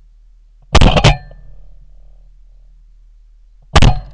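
Three shots from a Winchester SX4 semi-automatic shotgun fired at passing ducks: two in quick succession about a second in, then a third near the end.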